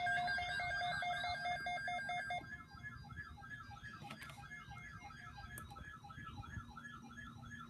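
Electronic emergency alert tone: a rapidly pulsing multi-tone beep for about two seconds, then a quieter warbling, siren-like tone, announcing a weather alert broadcast.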